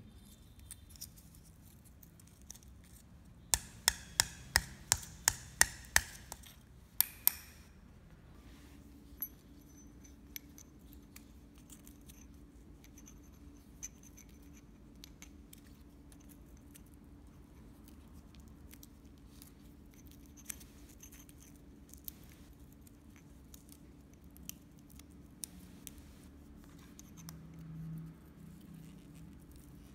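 A run of about ten sharp snaps, roughly two a second, as a piece of old fibreglass fishing-rod tube is split and trimmed by hand along its lengthwise fibres. After that come scattered small clicks and scratches of the work over a faint steady hum.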